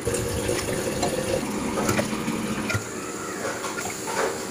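Water poured in a steady gushing stream from a steel vessel into a pressure cooker of soaked rice, filling it.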